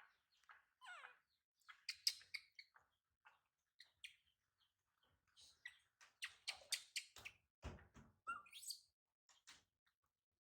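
Faint, scattered short chirps and squeaks, a few of them sliding in pitch, with a quick run of chirps and clicks about two thirds of the way in and a dull bump shortly after.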